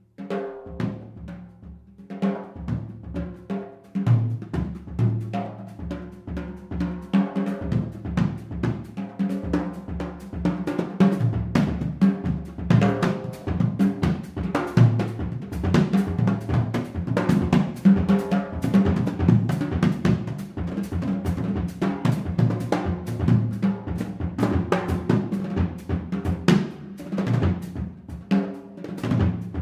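Jazz drum kit solo: strikes on tuned toms, snare and bass drum with cymbal hits. It starts with sparse strokes and gaps, then grows into dense, louder rolling patterns from about seven seconds in.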